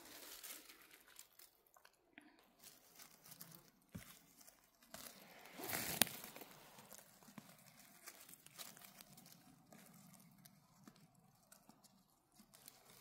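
Faint crunching and rustling in forest undergrowth, as footsteps and hands move through moss, leaves and twigs. There are scattered small crackles and one louder rustle about six seconds in.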